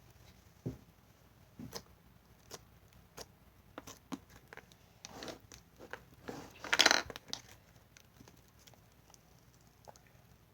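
Putty slime being squished and pulled apart by hand: scattered soft clicks and pops, with one longer, louder burst about seven seconds in.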